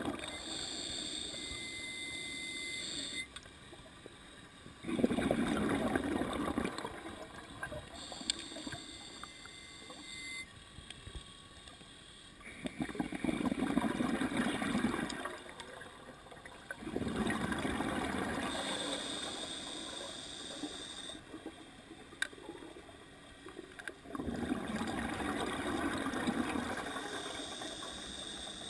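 Scuba diver breathing through a regulator underwater: quieter hissing inhalations with a thin whistle alternate with loud bubbling bursts of exhaled air, about one breath every six or seven seconds.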